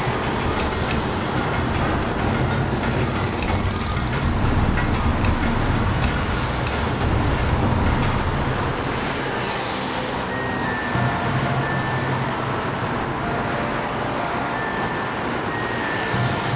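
Dense motorway traffic passing steadily: the tyre and engine noise of cars, vans and lorries.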